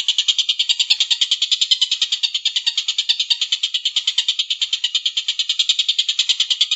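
A bird's long, fast, even chattering trill, about a dozen notes a second, holding without a break.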